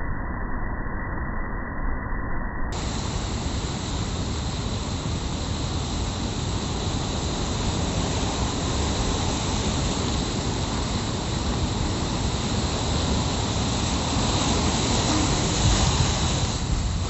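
Rough sea surf breaking and washing in over rocks: a steady roar of waves with a deep rumble, with a wave breaking right up close near the end.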